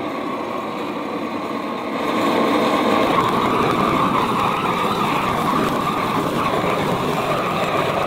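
Propane weed-burner torch running with a steady roar as its flame is played over wooden stair treads to char them. It gets louder about two seconds in.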